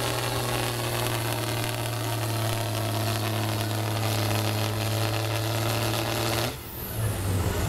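Case IH 1455 XL tractor's six-cylinder diesel engine running hard at a steady pitch under full load while dragging a pulling sled. About six and a half seconds in, the engine sound drops off sharply as the pull ends.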